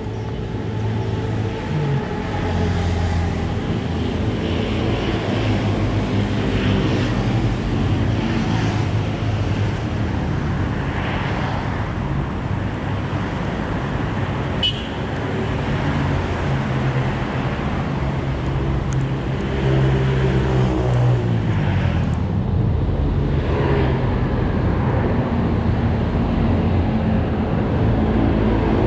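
Road traffic: motor vehicle engines running steadily, one of them rising in pitch about two-thirds of the way through, with a single short sharp click near the middle.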